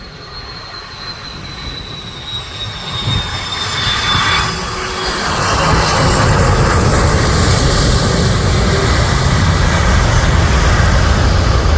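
Airbus A330-200 airliner on low final approach. The roar of its jet engines builds steadily over the first few seconds and then holds loud, with a high whine sliding slowly down in pitch as the aircraft comes over.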